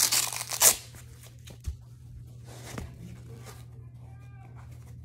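Rustling and handling noise as baseball gear is moved about, with a dull thump a little later. Near the end comes a brief high-pitched call.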